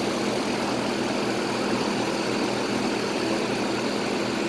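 Outdoor central air conditioner condensing unit running: a steady hum from the compressor with the rush of the condenser fan.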